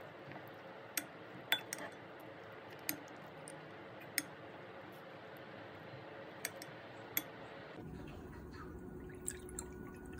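A metal spoon clinks against a ceramic bowl about seven times, sharp separate clicks, while rice and eggplant are mixed. About eight seconds in, coffee is poured from a bottle into a glass tumbler, a faint liquid pour with a couple of small clinks.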